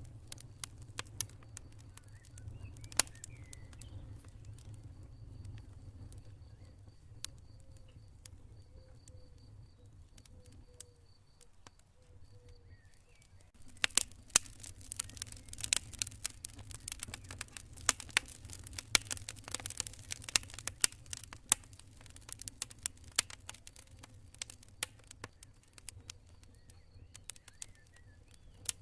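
Campfire burning and crackling: sharp pops and snaps, sparse at first and much denser from about halfway, over a low rumble. A cricket chirps in a steady high pulse through the first half.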